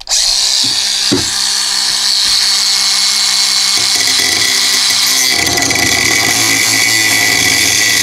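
Cordless angle grinder with a cut-off wheel slicing through an aluminized steel exhaust pipe: a steady high-pitched whine and grinding hiss that grows coarser about five seconds in.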